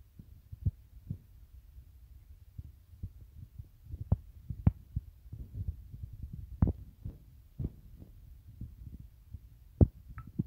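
Irregular soft thuds and a few sharp taps over a low rumble, as crushed garlic is scraped out of a stone mortar and into a plastic bottle.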